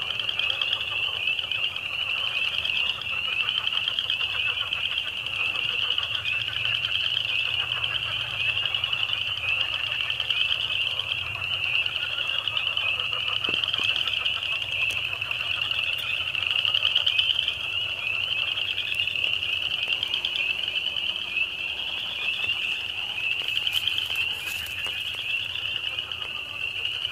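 A dense chorus of frogs calling: a steady, high band of massed peeping and trilling, with a lower layer of calls beneath.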